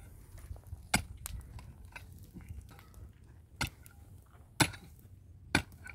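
Sharp knocks of something hard striking, five at uneven spacing about a second apart, two close together about a second in, over faint low background noise.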